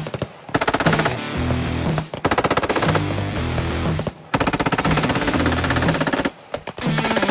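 Tripod-mounted machine gun firing fully automatic in long bursts, several in a row with short breaks between them.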